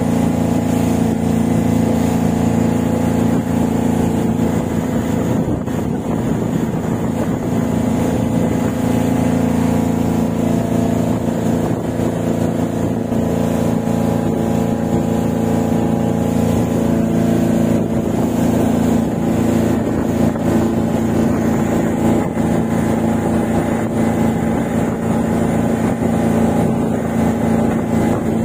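Boat engine running steadily at a constant speed.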